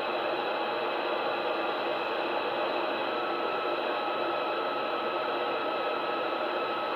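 CB radio receiver hiss: steady band noise from the speaker, about signal 7 on the meter, with no readable station coming through the poor skip. A faint steady whistle joins about three seconds in.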